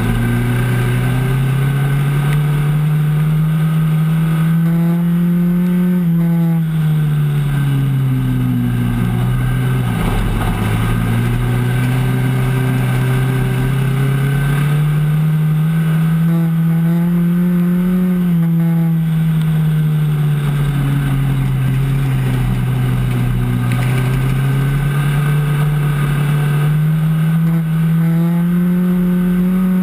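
Race truck engine heard from inside the cab, running hard. Its pitch climbs and falls in long waves, peaking about every twelve seconds as the truck accelerates and backs off around the oval.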